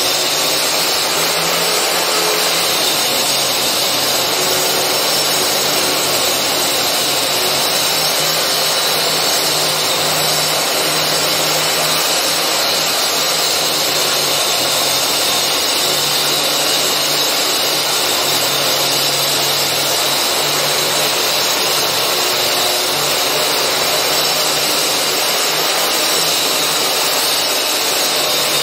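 Power tool cutting channels for concealed wiring into a wall, running steadily without a break, with a low motor hum under a loud hiss of cutting.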